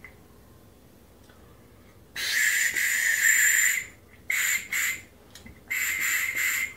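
A small whistle blown in shrill, breathy toots: one long blow of about a second and a half, two quick short ones, then another longer one near the end.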